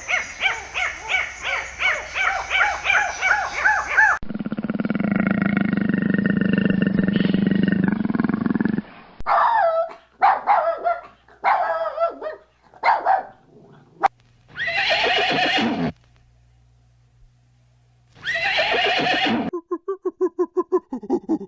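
A string of different animal calls cut one after another: first a fast run of repeated high calls, then a low drawn-out call of about four seconds, then several short calls, two longer calls a few seconds apart, and a fast pulsing sound near the end.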